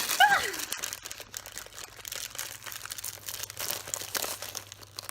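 Plastic packaging crinkling and crackling in irregular small clicks as a squishy toy is handled.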